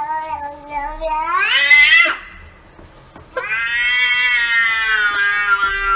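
A domestic cat meowing in two long, drawn-out calls. The first rises in pitch as it ends about two seconds in. The second starts about halfway through and holds, sagging slightly at the end.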